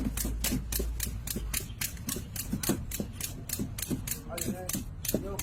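A rapid, even series of sharp clicks, about five a second, with a few short squeaky chirps near the end.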